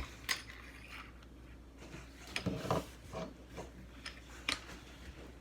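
LEGO plastic bricks being handled and pressed together: a scattering of light clicks and knocks, several of them close together around the middle.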